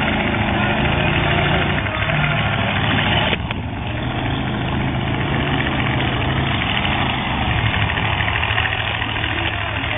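Demolition derby car engines running under a dense wash of arena noise. The sound drops abruptly about a third of the way in.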